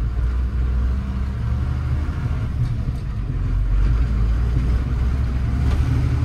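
1995 Ford F800 dump truck's engine pulling under way, heard from inside the cab. Its note dips and shifts in the first couple of seconds as a gear is changed, then builds again.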